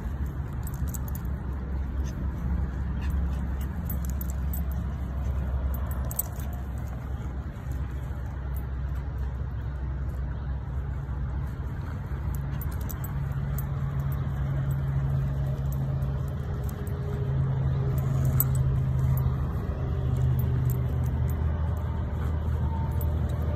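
A steady low rumble throughout, with the small metal jingle of leash clips and dog tags as two puppies tug and scuffle on their leashes.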